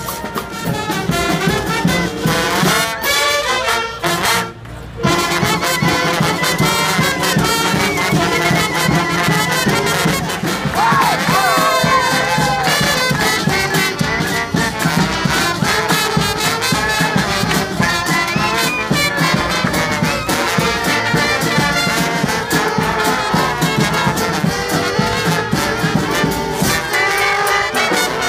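Brass street band playing, trumpets and trombones with some bending, sliding notes about eleven seconds in. The music drops out briefly about four to five seconds in.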